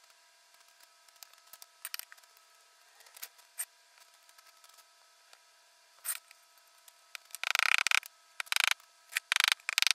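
A gloved hand sweeps sand across concrete pavers in several short scraping strokes, starting about seven seconds in. Before that there are only a few faint clicks and taps of tools on the paving.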